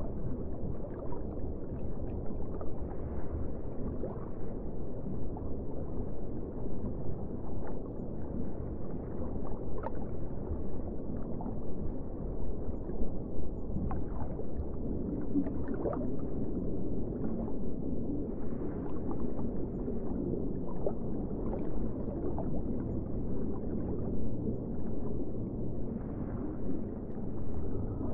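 Muffled underwater ambience: a steady low wash of water with short bubbling pops scattered through it.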